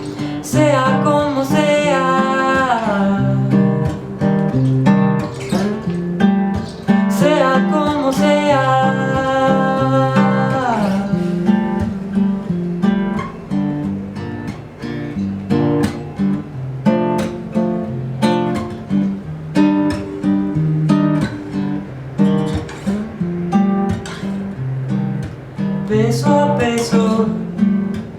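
Acoustic guitar strummed in a steady rhythm, with a wordless vocal melody over it in the first ten seconds or so and again near the end.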